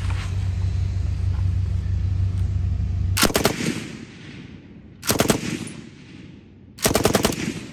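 Johnson light machine gun in .30-06 firing full auto from the open bolt: three short bursts of several shots each, about two seconds apart, the first about three seconds in, each trailing off in an echo.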